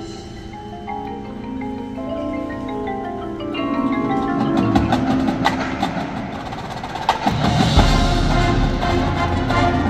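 Marching band front ensemble playing a flowing passage on marimbas and other mallet keyboard percussion. About four seconds in the music thickens and grows louder, then sharp percussion hits and a deep bass come in near the end.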